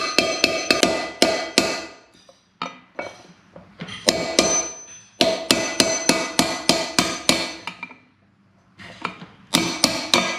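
Hammer blows on a long metal drift, knocking the old OEM wheel bearing out of a BMW S1000RR's rear wheel hub: runs of sharp, ringing metallic strikes, about four a second, with short breaks about two seconds in and about eight seconds in.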